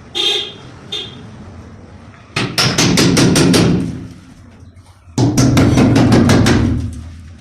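Two quick runs of rapid hammer blows, several strikes a second, typical of nailing gypsum guide strips to a ceiling. A short squeak comes right at the start.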